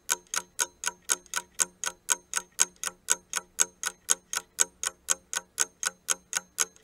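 Clock-ticking sound effect for a countdown timer: sharp, evenly spaced ticks about four times a second.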